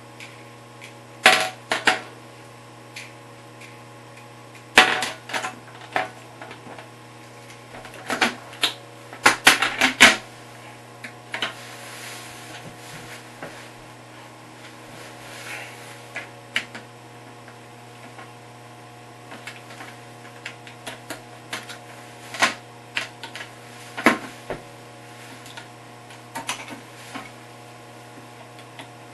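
Hard plastic toilet-seat and hinge parts clicking and clacking against the seat and the porcelain bowl as the seat is fitted. The sharp clacks come in scattered bunches, busiest in the first ten seconds, over a steady low hum.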